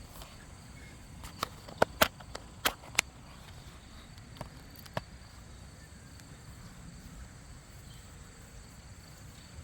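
Steady high insect trilling, with a quick cluster of sharp clicks and knocks about one to three seconds in and two fainter clicks a little later, from the camera being handled.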